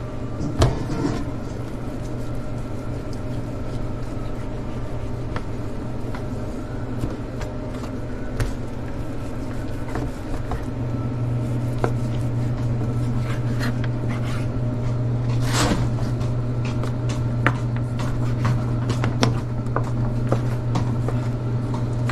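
Scattered taps and knocks of a butcher knife and raw beef on a plastic cutting board as the meat is trimmed and moved, over a steady low machine hum that grows louder about halfway through.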